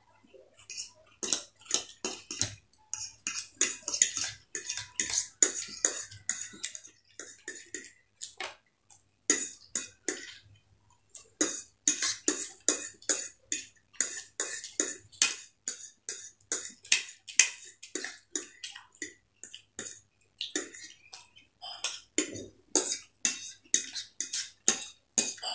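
Forks clicking and scraping on plates as two people eat egg chowmein, with noodles being slurped; a dense, irregular run of short clicks and scrapes.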